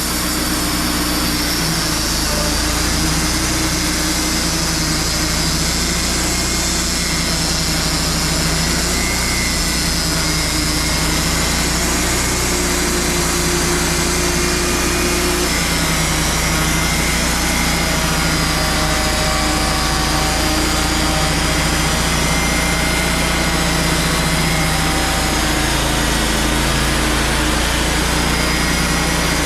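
Wood-Mizer LT35 portable band sawmill's engine running steadily, its pitch shifting slightly now and then.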